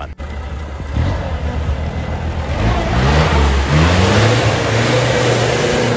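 Custom 6x6 off-road truck's engine revving hard as it climbs a muddy track, its pitch rising about halfway through, over tyres churning and spraying mud.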